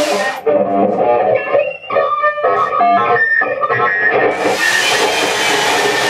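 A chainsaw's noise cuts off about half a second in, leaving a cello playing short, broken notes of changing pitch in free improvisation. About four seconds in, the chainsaw starts up again over it.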